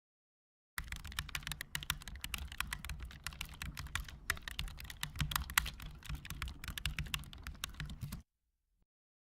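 Rapid, irregular clicking, like keys being typed, starting just under a second in and cutting off sharply about a second before the end.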